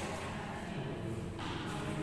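Indistinct voices chattering in a large indoor hall, steady background with no clear racket strike.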